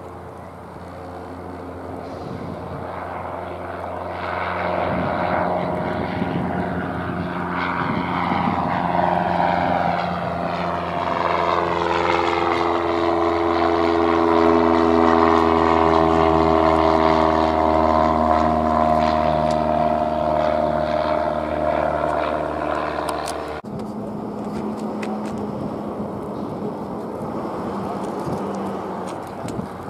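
Single-engine piston propeller plane (high-wing Cessna type) climbing out after takeoff. Its engine and propeller drone grows louder and falls in pitch as it passes overhead. It cuts off abruptly about three quarters of the way in, and a fainter, more distant propeller plane engine follows: a low-wing single taking off.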